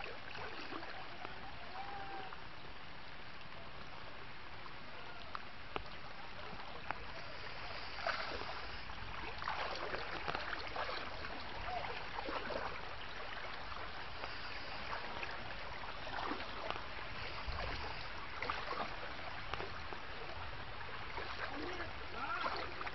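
Muddy floodwater running steadily, with short irregular splashes and knocks from about eight seconds in.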